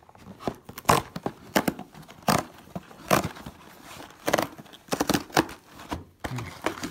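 Cardboard frozen-meal carton being pried and torn open by hand: a series of short, sharp rips and crackles.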